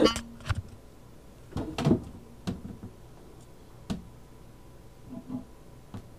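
A few scattered light knocks and clicks, about half a second to two seconds apart: handling noise from tweezers and hands against a plastic snake enclosure.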